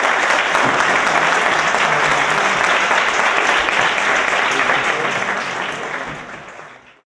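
Audience applauding, a dense steady clapping that fades near the end and cuts off.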